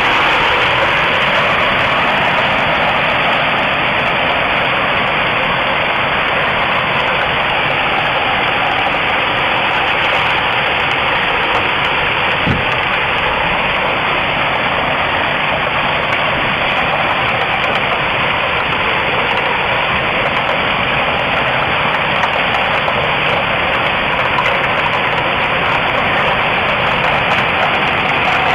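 Hailstorm: a dense, steady roar of hailstones and heavy rain pelting rooftops.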